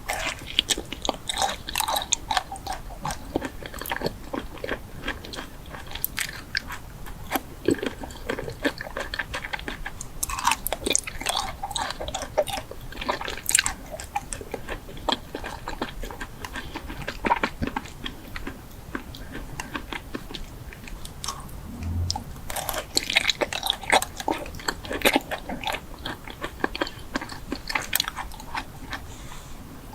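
A person biting and chewing crunchy food close to the microphone: a dense run of crisp crackling crunches, thinning out for a few seconds past the middle and picking up again.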